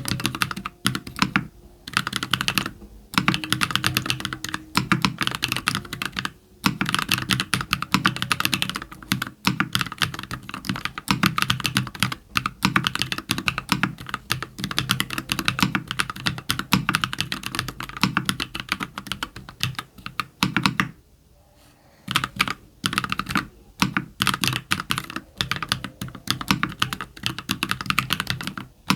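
Typing on a mechanical keyboard: an ilumkb Simpler60 on an aluminium plate with lubed JWK Cola linear switches and lubed Owlab v3 stabilisers, giving fast, continuous keystroke clacks with brief pauses, the longest about 21 seconds in.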